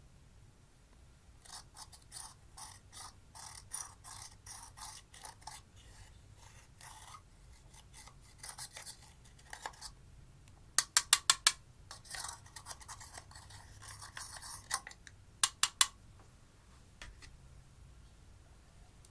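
A tool scraping a hard surface in short, rhythmic strokes, about three a second. Later come two quick runs of loud, sharp clicks, about five near the middle and three more a few seconds later.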